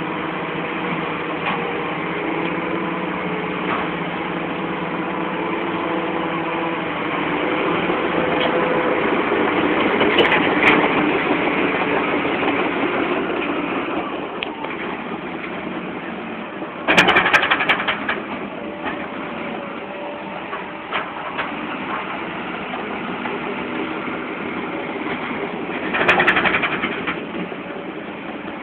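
Komatsu PC200 hydraulic excavator's diesel engine running under load as the hydraulics swing and raise the boom, arm and bucket, the engine note rising and falling with the work. Two loud clattering bursts stand out, one a little past the middle and one near the end.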